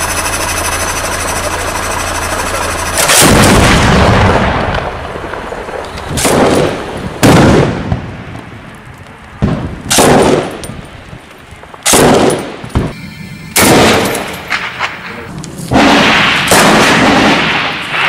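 Gunfire in combat: about nine loud shots and short bursts, each followed by a long echo, spaced one to three seconds apart. A steady drone comes before the first shot, about three seconds in.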